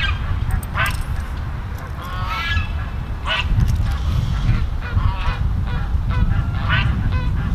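Geese honking repeatedly in short calls, over a steady low rumble.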